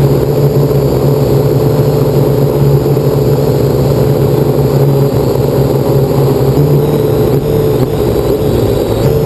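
Parrot AR Drone 2.0 quadcopter's four electric motors and propellers running in flight, a loud, steady hum heard close up from the drone itself.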